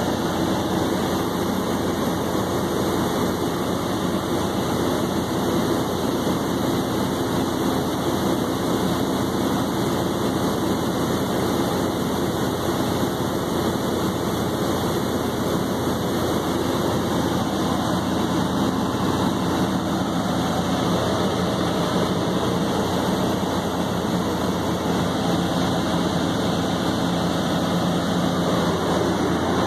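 The John Deere 4045 four-cylinder diesel engine of a 95 kW Chicago Pneumatic CPG 120 generator set running steadily at rated speed with no electrical load.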